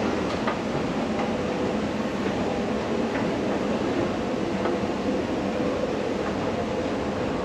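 Escalator running: a steady mechanical hum and rumble with a few faint clicks.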